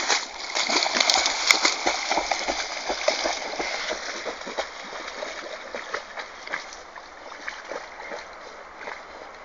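Laika dogs splashing into shallow water and swimming, a dense run of splashes for the first few seconds, then quieter, scattered splashes as they paddle out.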